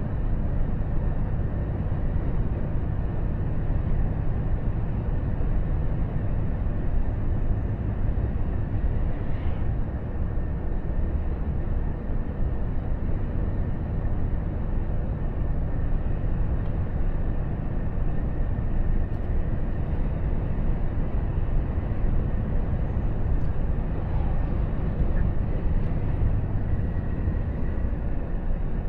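Volvo FH truck cruising steadily at about 65 km/h, heard from inside the cab: an even low drone of engine and road noise.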